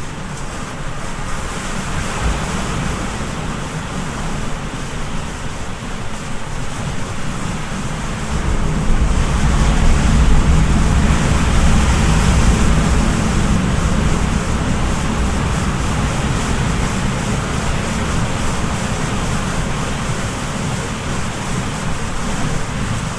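Sea waves washing in, a steady surf that swells louder about nine seconds in, with a deep rumble, and eases back after several seconds.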